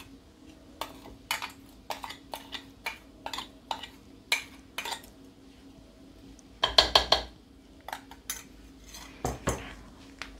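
Metal spoon tapping and scraping against a mixer-grinder jar, knocking ground coconut paste out into the pot: irregular sharp taps, with a louder quick rattle of ringing taps about seven seconds in.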